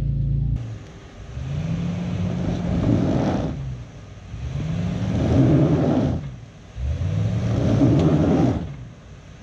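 Toyota Sequoia's V8 engine revving up and easing off three times as the SUV crawls up a rocky ledge, with its tyres scrabbling on rock and dirt.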